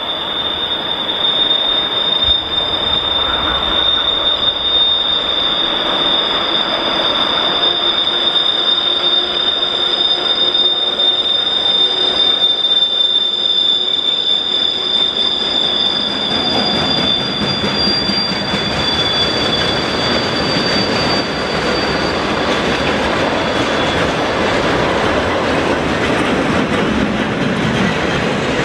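High-pitched whistle of a 2ES10 'Granit' electric locomotive's asynchronous traction drive as the train accelerates. It holds two steady high tones that drift slightly lower and fade out about two-thirds through. Meanwhile the rolling noise of the train on the rails grows louder from about halfway.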